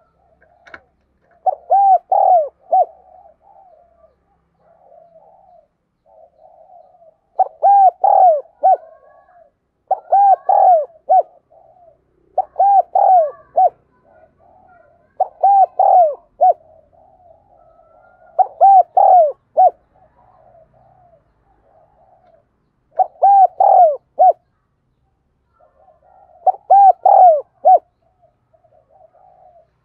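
Decoy spotted dove's calling song: eight loud phrases of a few quick coos each, spaced a few seconds apart, with soft low cooing in between.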